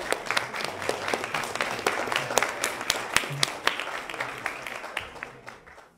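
Audience applauding: many hands clapping, dying away over the last second or so.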